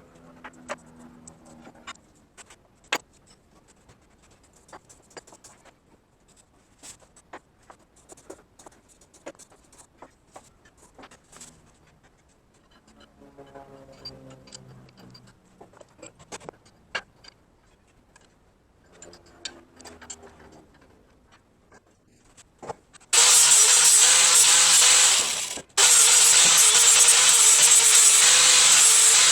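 Scattered light clicks and taps of parts being handled, then a power tool starts suddenly about 23 seconds in and runs loudly with a steady grinding noise, cutting out briefly and starting again.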